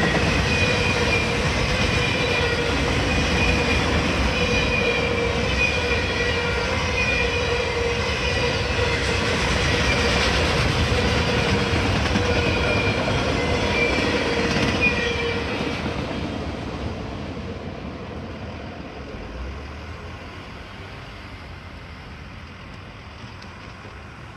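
Freight train of autorack cars rolling past over a grade crossing, steel wheels on the rails with a wavering high wheel squeal. About fifteen seconds in the last car goes by and the sound fades away.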